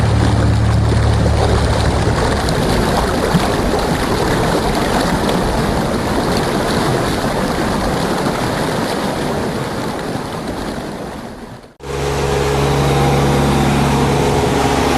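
Rushing water and wind noise of a boat under way, fading and cutting off sharply about twelve seconds in. It is followed by a steady engine hum.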